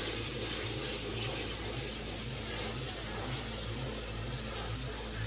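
Steady rushing outdoor noise with an uneven low rumble beneath, recorded beside burning railway passenger coaches.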